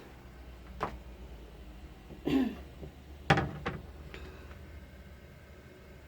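A woman clearing her throat and coughing: a few short sounds between about two and four seconds in, the sharpest one just past three seconds, over a faint steady hum.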